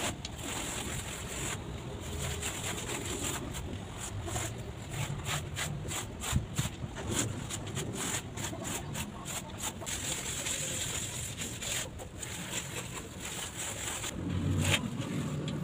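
Cloth or sponge rubbing back and forth over grouted broken ceramic tiles, a rapid run of short scrubbing strokes as the grout is wiped off the tile faces.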